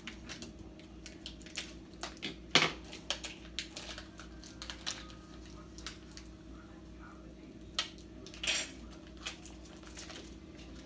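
Scattered light clicks and clatters of small plastic toy packaging being opened and handled, with one louder knock about two and a half seconds in and a brief rustle a little past the middle.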